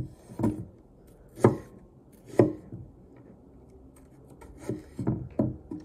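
Damascus chef knife dicing apple on a cutting board: the blade knocks on the board three times, spaced about a second apart, then in a quicker run of chops near the end.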